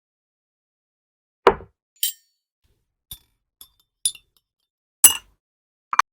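Tableware clinking: about seven separate sharp clinks and taps. The first, about one and a half seconds in, is the loudest and heaviest, like a cup set down.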